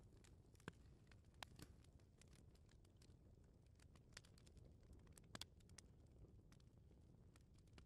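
Faint crackling of a wood fire in a fireplace: irregular sharp pops scattered through, over a low hum.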